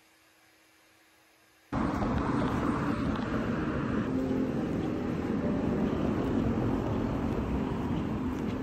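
Faint room hum, then, about two seconds in, an abrupt cut to loud, steady outdoor street noise with traffic.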